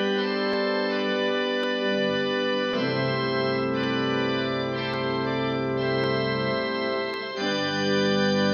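Church organ playing slow, held chords over deep bass notes, the chord changing about three seconds in and again near the end.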